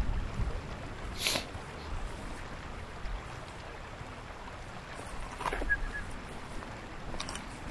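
Wind rumbling on the microphone over a steady outdoor hiss, with rustling of dry grass, louder about a second in and again about five and a half seconds in.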